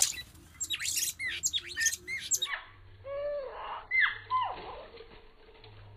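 Oriental magpie-robin calls: quick, sharp notes that sweep down in pitch, many in quick succession. About two and a half seconds in, the sound changes abruptly to a duller recording with a few slower descending whistles over a faint low hum.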